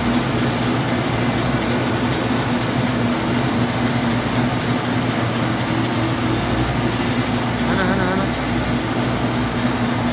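Flexographic printing machine for OPP film running steadily: a constant mechanical rumble and hum from its rollers and drive, with a steady high whine above it.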